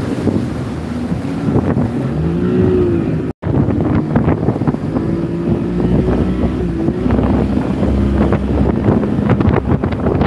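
Outboard motor of a small fishing boat running under load through surf, its pitch rising and falling as the throttle changes, with wind on the microphone and water noise. The sound cuts out completely for a moment about a third of the way in.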